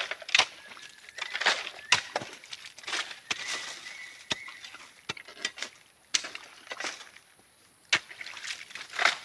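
Hands digging and scooping in wet mud and sand: irregular squelches, slaps and small splashes, with a quieter lull about six seconds in.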